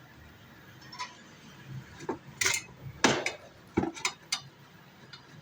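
Small metal hand tools clicking and clinking on a workbench: a scatter of sharp taps, starting about a second in, busiest in the middle.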